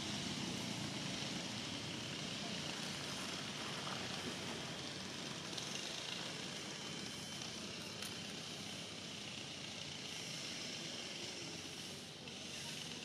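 Steady outdoor background noise: a low rumble with a hiss above it, and no distinct events.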